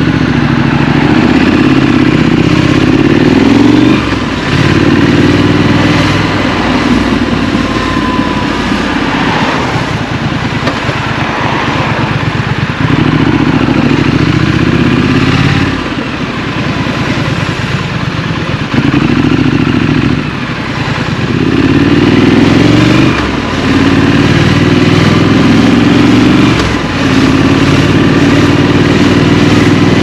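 Scrambler motorcycle engine pulling through the gears in city riding: the revs climb for a few seconds, dip sharply at each gear change, then climb again, several times over. About a third of the way in it runs lower and rougher for a while before picking up again.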